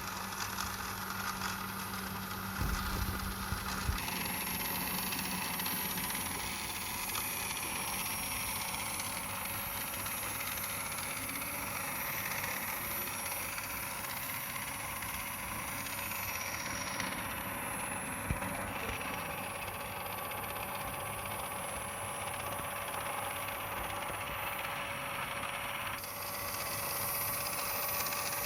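Steady running noise of a toy remote-control car's small electric motor and wheels, with a faint constant whine and a few knocks about three seconds in.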